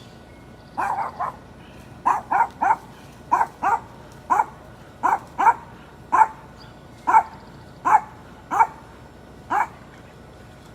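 A dog barking over and over: short, sharp barks in ones, twos and threes, starting about a second in.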